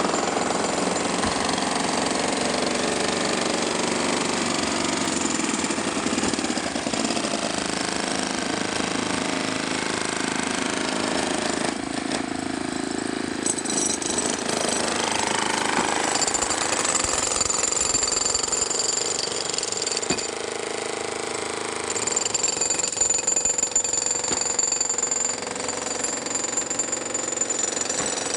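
Jackhammer breaking up concrete during building demolition.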